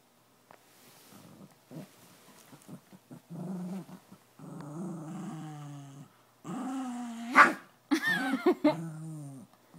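Chihuahua growling in play: short growls that grow longer and louder, a sharp yap about seven and a half seconds in, then more growling.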